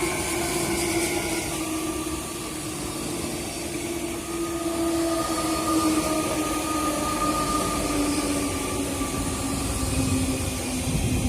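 RER suburban electric train running through the station, with a steady whine over the rumble of the wheels. The whine slowly drifts lower in pitch over the last few seconds.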